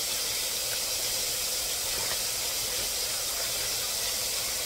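Kitchen faucet running in a steady stream into a bowl of chopped cabbage while hands rinse and turn the leaves.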